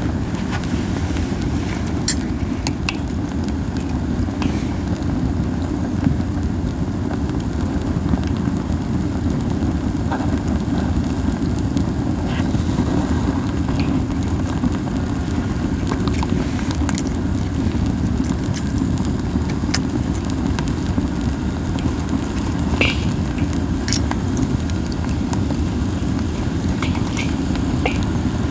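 Pine cones burning in a fire pit: gentle, scattered crackles and small pops over a steady low whooshing rumble, the "bofu bofu" of strong flames and wind.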